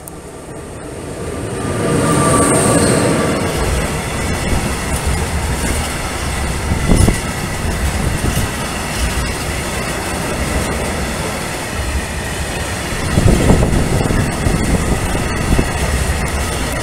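Freight train of tank wagons hauled by a class 163 electric locomotive passing close by. The noise builds over the first two seconds as the locomotive arrives. Then a steady rumble of wagon wheels on the rails follows, with louder swells about seven and thirteen seconds in.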